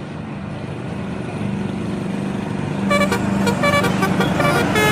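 A bus engine running and growing louder, then about three seconds in a telolet horn starts up: a multi-note musical air horn playing a quick tune of short, separate notes that change pitch from one to the next.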